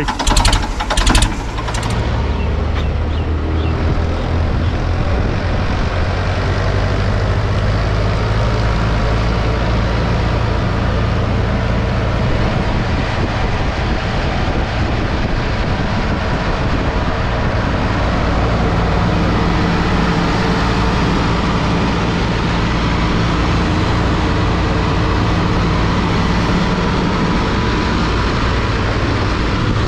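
Ford 3600 tractor's three-cylinder diesel engine running steadily as it drives along the road, mixed with steady road and wind noise. The sound opens with a few brief knocks.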